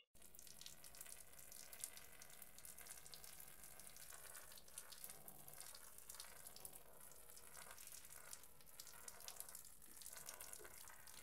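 Near silence: a faint steady hiss with a few scattered faint ticks.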